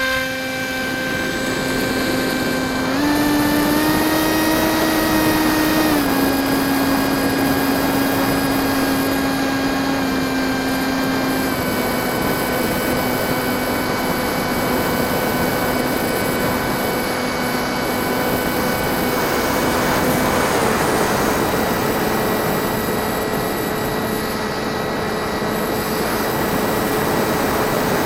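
Electric RC plane's brushless motor and propeller running under throttle, a steady whine with air rush. The pitch steps up about three seconds in, drops back about three seconds later, then settles lower in two further steps as the throttle is eased.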